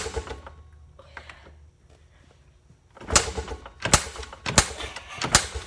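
The manual starter of a small off-road bike being worked hard and repeatedly, a sharp mechanical clatter about every 0.7 seconds from about three seconds in, without the engine catching. A single knock comes right at the start.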